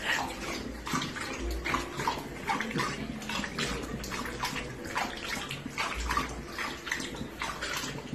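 Tap water running from a faucet into a ceramic bathroom sink, broken every moment by splashes as a golden retriever laps at the stream with its tongue.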